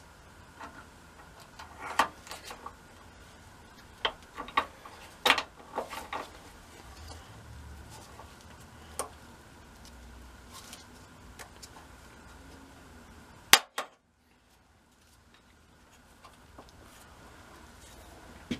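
Hand pop rivet gun setting rivets through a steel bracket into sheet metal: a string of clicks and metal clacks as the handles are squeezed, with the loudest, a sharp snap, about two-thirds of the way in.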